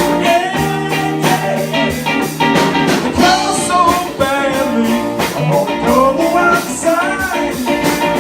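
Soul song playing: band with guitar and drums, with a singing voice gliding between notes over it.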